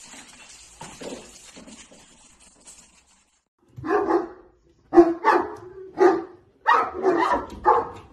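A dog barking repeatedly, about half a dozen loud barks in quick succession starting about four seconds in, after a few seconds of faint hiss.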